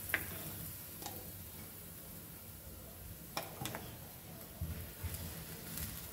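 A few light, sharp clicks and soft knocks of kitchen utensils on a flat griddle as ghee is added to a cooking paratha, over a faint low background hum.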